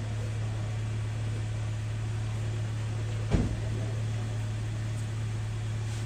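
Steady low hum of a car engine idling, with one sharp thump a little over three seconds in.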